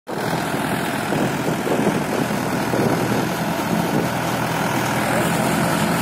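Trakstar 550 tractor's diesel engine running steadily while it powers and tows a round baler through straw, with the baler's machinery mixed in.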